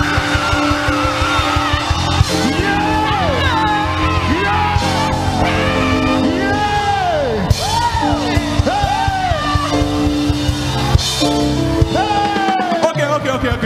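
Live praise band playing fast dance music: a quick drum beat under held keyboard chords, with a lead line that repeatedly slides up and down in pitch.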